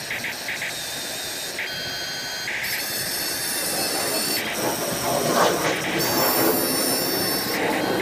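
Small electric motors and metal gears of a Huina 1550 RC excavator whining as it drives on its tracks and works its boom and arm. The high whine cuts in and out as different motions start and stop, with a louder grinding rush about halfway through.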